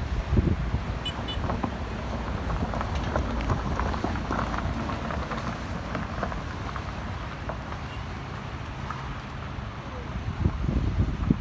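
Wind buffeting the microphone over a steady background of road traffic, with strong gusts at the start and again near the end.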